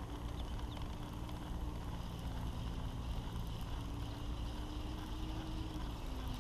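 Baitcasting reel being cranked steadily as a spinnerbait is retrieved: a faint, steady whir over low rumble of wind on the microphone.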